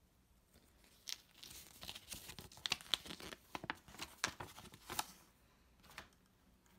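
Paper and packaging from an LED strip light kit box being handled: a run of sharp rustles and crinkles lasting about four seconds, then a single click near the end.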